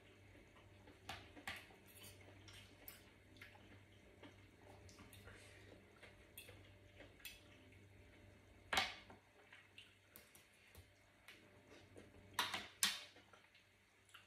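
Quiet eating sounds: a metal spoon and fork clinking and scraping against a metal tray while stirring through wet salad, with soft wet chewing. A few louder clicks stand out, one past the middle and two close together near the end.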